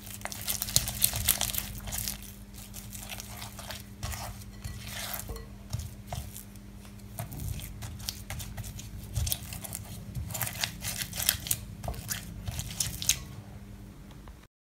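Spatula stirring and scraping a soft butter, sugar and egg-yolk mixture around a glass bowl: irregular wet scrapes and light knocks against the glass, over a faint steady hum.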